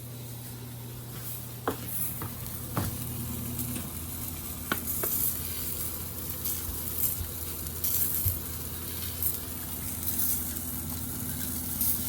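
Food sizzling as it fries in a pan, with a few sharp clicks of a utensil against the pan, over a steady low hum.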